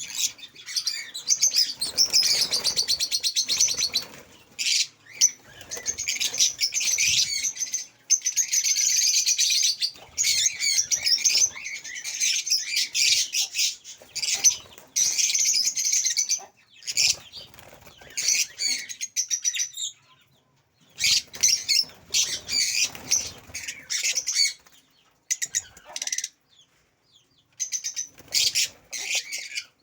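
A caged colony of African lovebirds chattering in high-pitched, rapid bouts, broken by a few short pauses.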